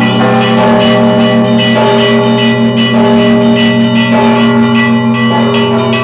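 Russian Orthodox church bells rung by an automatic electronic ringer, with motor-driven strikers pulling the clapper ropes instead of human hands. Small bells are struck in a quick pattern about twice a second over the steady ringing of the larger bells.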